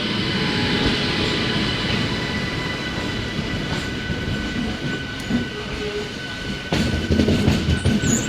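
Train running on the tracks: a steady rumble with thin, steady high tones over it, turning louder and more uneven about seven seconds in.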